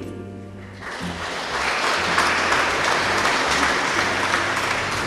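Audience applauding: the clapping starts about a second in, builds, and tapers off near the end.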